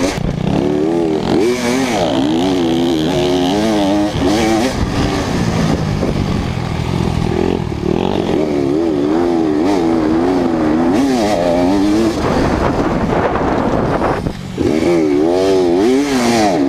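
Off-road motorcycle engine, heard from on the bike, revving up and down over and over as the rider rides the race track. Near the end the sound briefly drops.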